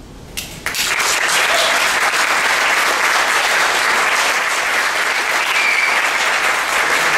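Audience applauding: a lone clap just under half a second in, then the whole audience breaks into steady applause.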